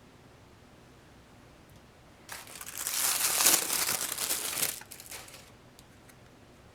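Packaging crinkling for about two and a half seconds as a small advent-calendar box and its wrapping are handled and opened by hand, starting a little over two seconds in and then dying away.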